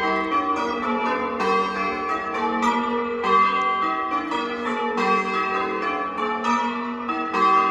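A ring of six church bells (tenor 9 cwt 2 qr, in the key of G) being rung, the bells striking one after another in a steady rhythm, their ringing tones overlapping.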